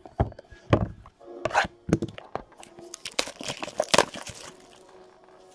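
A few sharp knocks as a card pack is handled and pulled from its cardboard display box, then plastic shrink-wrap crinkling and tearing as it is peeled off the pack.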